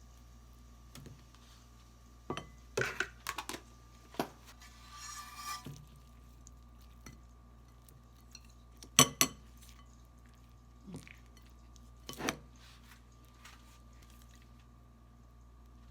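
Dishes and utensils clinking and knocking in a few scattered bursts, the loudest pair of clinks about nine seconds in, with a short rustle around five seconds.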